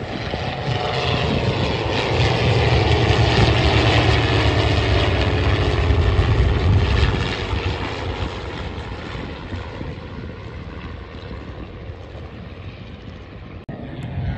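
Piston engines and propellers of three Fiat G.46 trainers flying over in formation, their Alfa Romeo 115 Ter inverted inline six-cylinder engines droning. The sound grows loud with a falling pitch as the aircraft pass, then fades away after about seven seconds.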